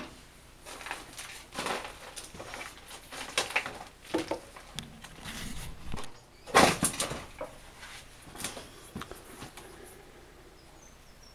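Scattered, irregular handling noises: short rustles and knocks, the loudest about six and a half seconds in.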